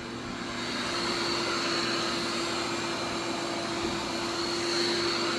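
Large electric drying blower running with a steady whir, a constant low hum and a high whine, getting louder over the first second and then holding.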